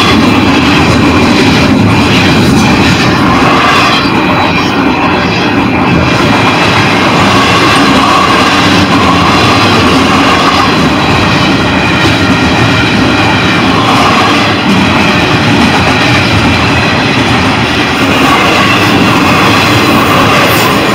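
Double-stack container freight train rolling past, a loud, steady noise of its wheels on the rails.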